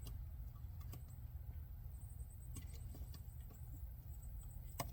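Faint, scattered clicks of metal picks working the plastic locking tabs of an engine computer (ECM) wiring connector while it is pried out, with one sharper click near the end, over a steady low rumble.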